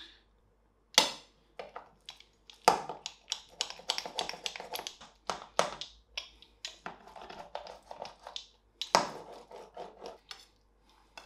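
Pizza cutter wheel rolling through a cheese-topped cabbage-and-egg bake on a plate: a run of sharp crackles and clicks against the plate, in several strokes with short pauses between them.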